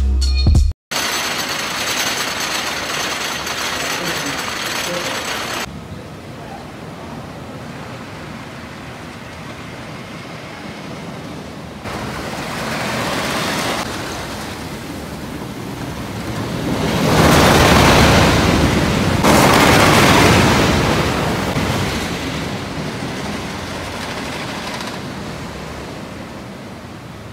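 Wooden roller coaster train running along its track. A rattling roar builds, is loudest a little past halfway, then fades.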